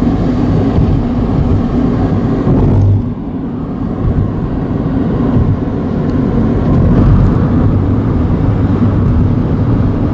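Car moving along a road heard from inside the cabin: steady engine and tyre rumble, dipping briefly about three seconds in.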